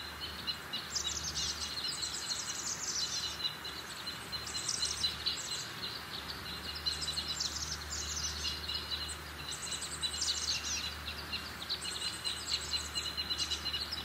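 Woodland birdsong: several birds singing in rapid, repeated high chirps and trills over a steady low rumble.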